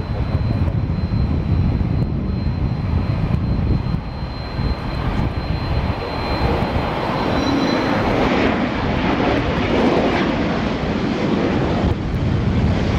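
Aircraft engine noise from a plane close by at an airport: a loud, steady low rumble with a thin high whine that fades out about eight seconds in, while a broader rushing noise swells toward the end.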